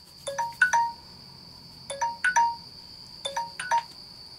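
Samsung smartphone's alarm tone going off: a short four-note chime phrase repeated three times, about one and a half seconds apart, over a steady high tone. It is most likely the 30-second countdown timer ending.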